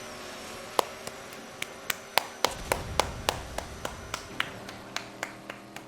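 A quick, irregular run of sharp taps or clicks, about three a second, some with a brief ring.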